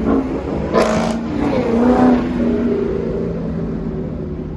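Ford Mustang's engine revving hard as the car slides sideways past, its pitch rising and falling, with a brief harsh burst about a second in. The engine sound peaks around two seconds and then fades.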